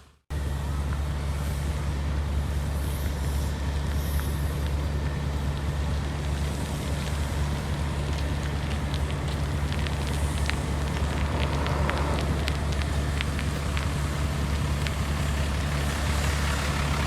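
Heavy road-construction machinery's diesel engine running steadily with a low, even drone, and scattered faint ticks about halfway through.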